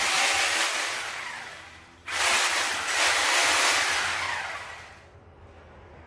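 Hand-held corded electric rotary hammer drill run free in the air, in two bursts: each starts abruptly and winds down over a couple of seconds.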